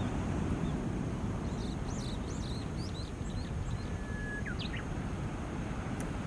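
Small waves washing on a shore in a steady low rush. A run of high bird chirps comes about a second and a half in, then a Japanese bush warbler's song: one long held whistle breaking into quick rising notes, the 'hoo-hokekyo' phrase.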